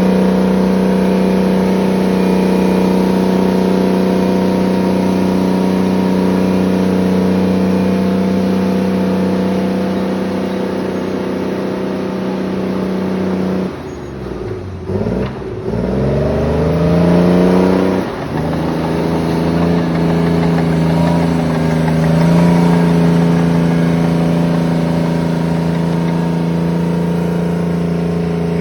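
Terex 82-20 crawler bulldozer's diesel engine running steadily at high revs. About halfway through, the engine note drops sharply, then climbs back up over a few seconds and steadies again, the way a dozer engine lugs down under load and recovers.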